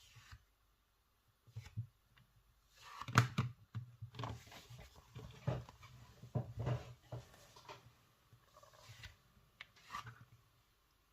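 Hands working plasticine and small sculpting tools on a work surface: irregular taps, knocks and rubbing, busiest in the middle stretch.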